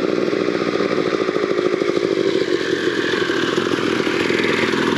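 Dirt bike engines idling steadily, with an even, rapid firing pulse.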